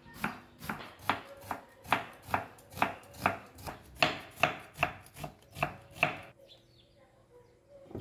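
Kitchen knife slicing a white onion on a wooden cutting board: a steady run of sharp knocks, a little over two a second, which stops about six seconds in.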